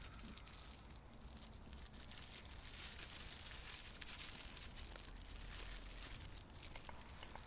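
Paper wrapper crinkling and rustling as food is unwrapped by hand: a dense run of small crackles, busiest in the middle.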